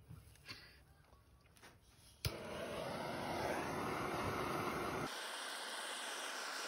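A hand-held butane torch lights with a sharp click about two seconds in, then its flame hisses steadily; the low rumble in the hiss drops away about five seconds in. Before that there are a few faint clicks of skewers being set on the grill wire.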